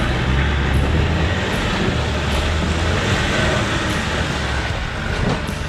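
Land Rover Defender engine running steadily under load as the truck crawls through deep mud, with a steady rushing noise over it.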